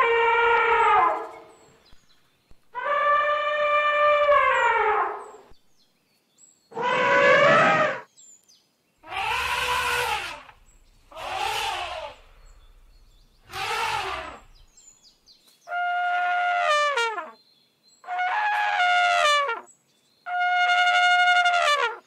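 An elephant trumpeting: a string of about nine separate calls, each one to two seconds long with short silences between them, several sliding down in pitch as they end.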